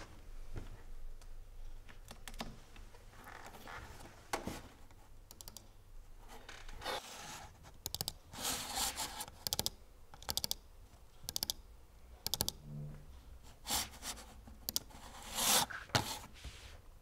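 Keys and clicks on a computer keyboard at irregular intervals, some in quick runs, with a few short scraping sounds in between.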